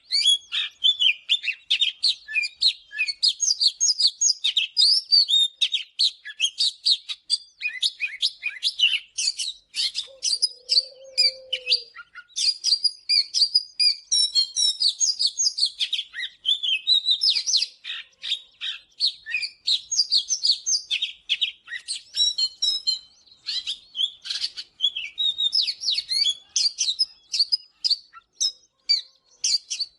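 Oriental magpie-robin singing: a fast, unbroken run of varied whistled and chirped notes.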